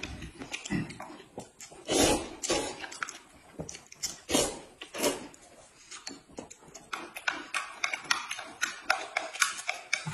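Close-up eating sounds: noodles slurped in a few short bursts, with chewing and the light clicks of chopsticks against a plate.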